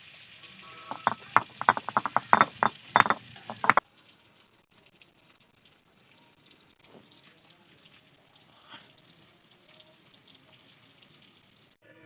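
A quick, uneven run of loud, sharp knocks, around twenty strikes in under four seconds. It then cuts off suddenly to a faint, steady hiss.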